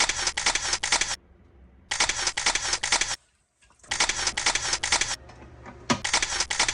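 Camera shutter sound effect firing in rapid bursts of about six clicks a second, four bursts of a little over a second each with short gaps between.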